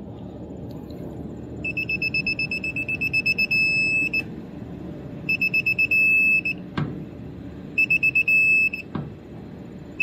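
Digital torque wrench beeping at a high pitch: rapid beeps that run into a steady tone as the 3/8-inch flare nut reaches the set 27 foot-pounds, repeated three times. Two brief clicks fall between the later runs.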